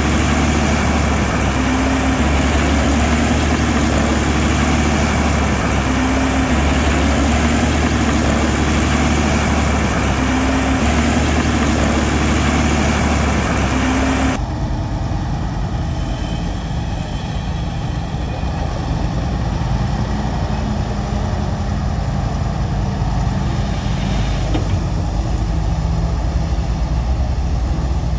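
Diesel engine of heavy earthmoving machinery running steadily, its note swelling and easing every few seconds. About halfway through the sound changes abruptly to a duller, different engine recording.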